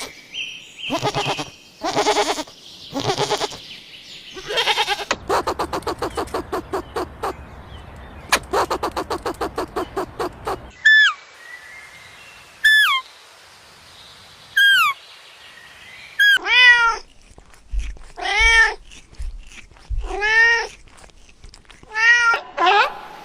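A string of animal calls: a few drawn-out calls, then two long, rapidly pulsing calls and three short, high, falling chirps, followed in the last third by a cat meowing repeatedly, each meow rising and falling in pitch, about every second and a half.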